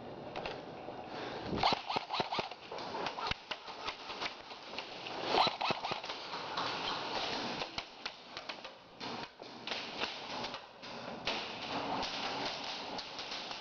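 Irregular scattered sharp clicks and snaps over close rustling: airsoft gear and movement against a helmet-mounted microphone, with airsoft shots and BBs striking hard surfaces.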